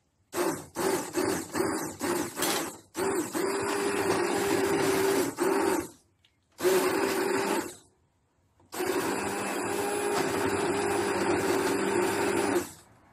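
Hand-held stick blender puréeing a pan of leek and potato soup. It starts in a string of short pulses, then runs in three longer stretches of a few seconds each, with brief stops between them.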